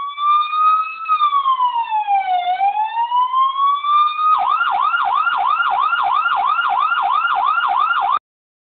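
Electronic police-style siren: a slow wail that rises, falls and rises again, then switches to a fast yelp of about three to four sweeps a second, and cuts off abruptly near the end.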